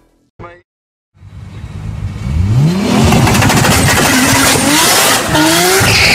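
Tuned Nissan Silvia S15 accelerating hard, engine pitch climbing several times as it revs up through the gears. It fades in after about a second of silence.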